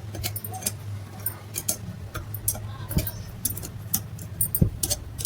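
Irregular metallic clicks and clinks, like small metal parts or tools being handled, with a couple of heavier knocks about three seconds in and near the end, over a steady low hum.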